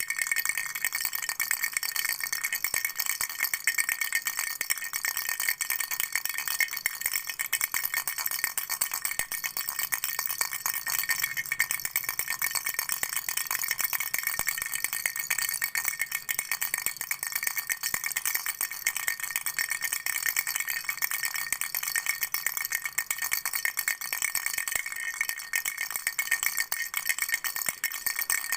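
A baby's flower-shaped toy rattle shaken continuously: a steady, dense stream of small beads clicking and jingling inside it, with a bright, high ring.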